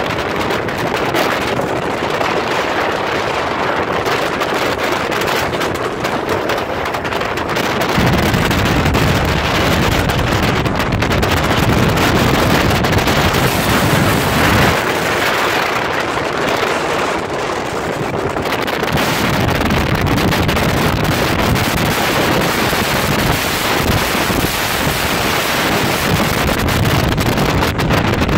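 Wind buffeting the microphone of a small open boat under way: a steady rushing noise, with the low rumble swelling for stretches of several seconds at a time.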